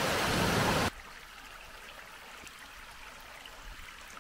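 River water rushing over stones, a loud steady hiss that cuts off suddenly about a second in, leaving only a faint steady outdoor hiss with a few faint high chirps.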